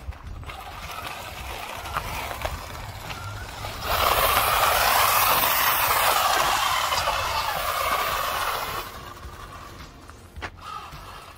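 Kyosho Optima Mid RC buggy driving on icy, snowy pavement: its brushed electric motor whining and its tyres scrabbling over the snow and grit. The sound grows much louder about four seconds in, holds for several seconds with a wavering pitch, then fades as the buggy drives away.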